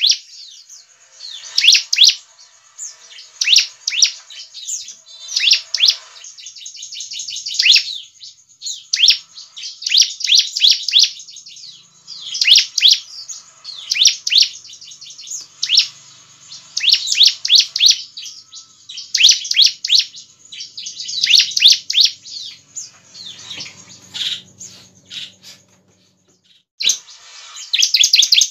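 Bar-winged prinia (ciblek) singing: repeated bursts of fast, high-pitched trilled notes every second or two, with a pause of about two seconds near the end.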